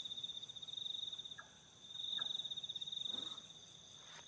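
Night insects trilling: a steady, high, finely pulsing chirr that swells for a second or so past the middle. A few faint, short falling notes sound under it.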